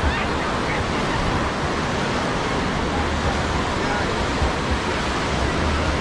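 Steady rushing beach ambience of sea surf, with a low rumble underneath and faint distant voices.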